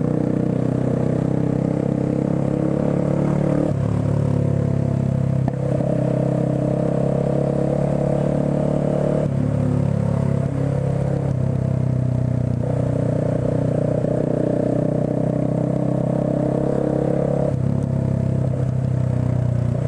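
Motorcycle engine running at low speed in traffic, heard from the rider's position, its pitch stepping up and down several times with throttle and gear changes.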